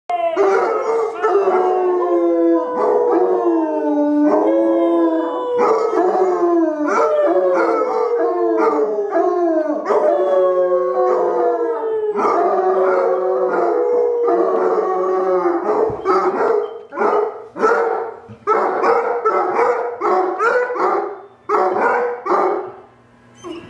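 Two basset hounds howling along with a man who howls with them, in long falling howls. In the last third the calls turn into shorter, choppier bursts with short gaps between them.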